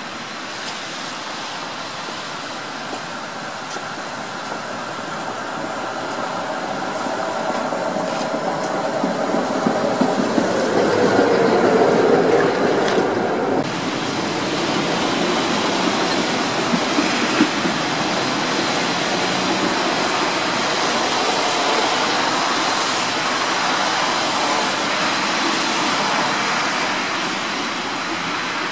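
A tram approaching and passing close, its wheels rumbling on the rails and its motor whine falling in pitch, getting louder up to about 12 s in. About 14 s in the sound changes suddenly to a steady rushing noise.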